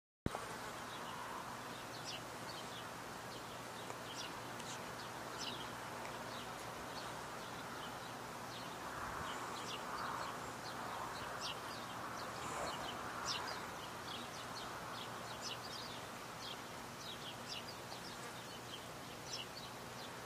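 Outdoor nature ambience: a steady background hiss with many short, high chirps from small birds scattered irregularly throughout.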